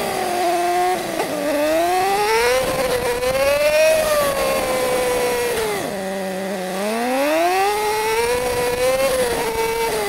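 Yamaha YZF-R6 600cc inline-four sport-bike engine pulling through city traffic, heard from the rider's seat. Its revs climb, ease off, drop sharply about six seconds in, then climb again and hold before falling at the end.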